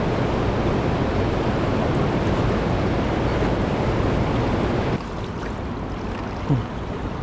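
Steady rush of fast river current mixed with wind buffeting the microphone. About five seconds in it cuts abruptly to a quieter stretch of the same noise, with one short louder sound near the end.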